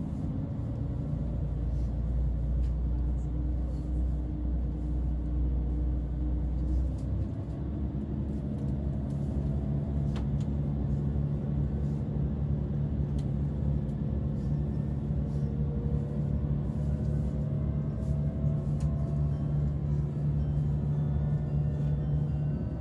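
Diesel railcar engine and running noise heard inside the carriage of a limited express train: a steady low drone that shifts to a higher note about seven seconds in, with faint tones rising slowly as the train gathers speed.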